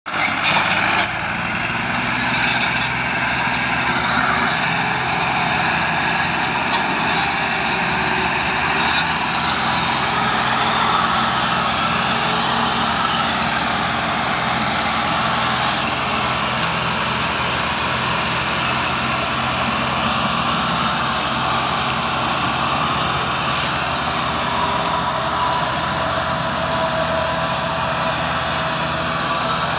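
Massey Ferguson 385 and Ghazi 480 diesel tractors working hard under heavy load, hauling an overloaded sugarcane trolley; a steady engine drone that is a little louder in the first second.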